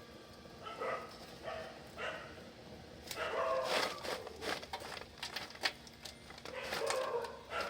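A dog barking and whining in a run of short calls, with a few sharp clicks about halfway through.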